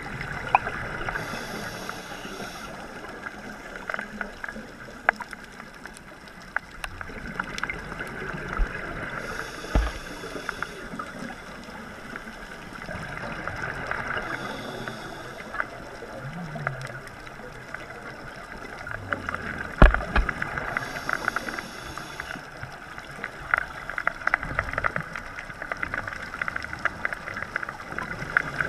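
Underwater sound heard through an action camera's housing: a steady wash of water noise with many scattered clicks. Every five to seven seconds there is a brief hiss typical of a scuba diver's regulator breaths, and two louder knocks come about ten seconds apart.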